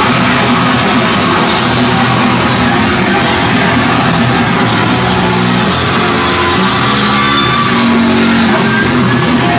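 Loud rock music with guitar, playing without a break.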